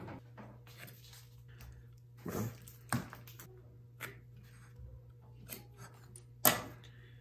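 A steel combination square and pencil being worked against a small wooden block on paper: scattered light taps and knocks as the square is set and shifted and lines are drawn, the sharpest knock near the end, over a steady low hum.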